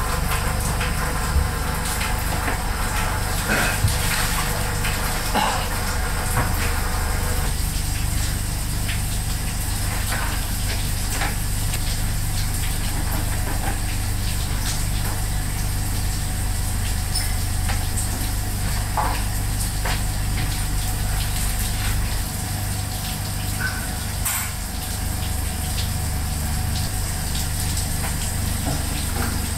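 Steady low mechanical rumble of kitchen equipment with scattered light clicks and knocks of kitchen work; the rumble eases a little about two-thirds of the way through.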